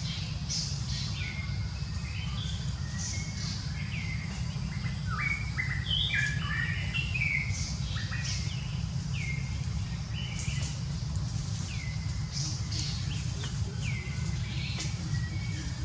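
Birds chirping, many short calls repeated again and again and overlapping, with a busier cluster of calls around the middle, over a steady low rumble.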